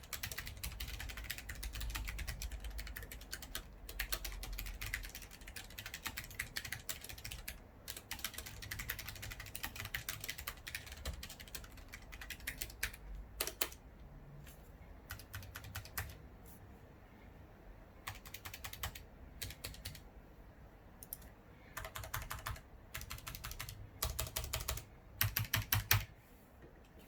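Typing on a Logitech G813 low-profile mechanical keyboard with GL Brown tactile switches: runs of fast keystrokes broken by short pauses, with a quick, louder burst of strokes near the end.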